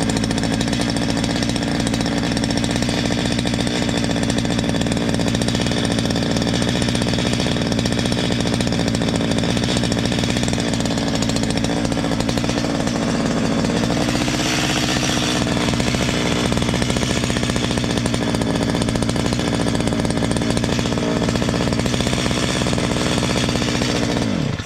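Stihl MS 230 two-stroke chainsaw engine running steadily, then shut off near the end, the engine note falling away. Only a slight noise is heard from the front by the exhaust muffler, which the mechanic takes for a small loose part there.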